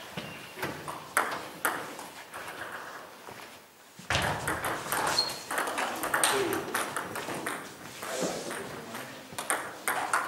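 Table tennis balls clicking off the tables and rubber-faced bats in quick, irregular succession, from the near rally and other tables in play. There is a brief lull just before four seconds in, then the strokes pick up again.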